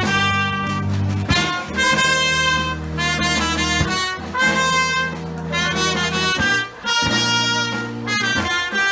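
Brass ensemble playing a fanfare: bright high brass over sustained low notes, in loud held chords that change every second or two with sharp attacks.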